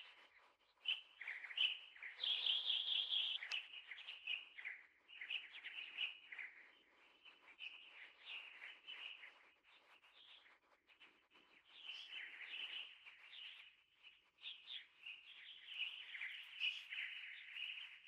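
Small birds chirping and twittering in quick, high calls, with a louder run of rapid chirps about two seconds in.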